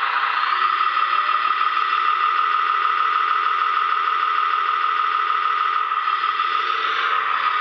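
Steady mechanical running sound from a radio-controlled 1:14.5 scale Mercedes SK tipper truck model as its dump body lowers: a continuous mid-pitched whine with no deep bass.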